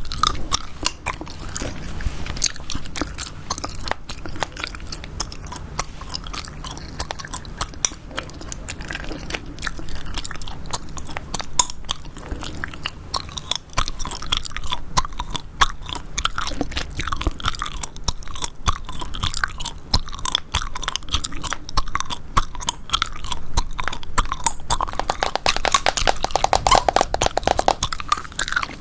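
Chewing gum close to the microphone: a steady run of quick clicks and smacks, growing denser and louder near the end.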